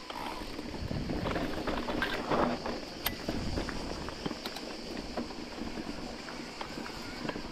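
Electric mountain bike riding over dry roots on a dirt trail: the bike rattles, with many scattered sharp clicks, loudest in the first few seconds. A steady high hiss of cicadas runs underneath.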